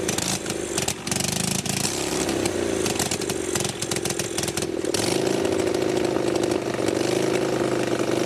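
Vintage Harley-Davidson V-twin board track racer engine running unmuffled, its exhaust blasting straight out of open ports with no pipes. It revs unevenly for the first few seconds, then about five seconds in settles into a steady fast run.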